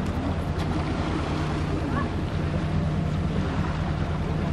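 Whale-watching boat's engine running with a steady low hum, under wind and water noise.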